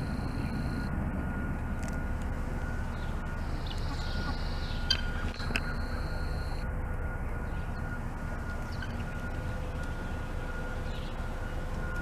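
Steady low outdoor rumble with a faint steady hum, and a couple of brief clicks about five seconds in.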